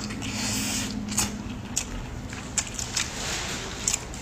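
Close-miked chewing of fatty meat: wet smacks and a few sharp mouth clicks over a steady hiss.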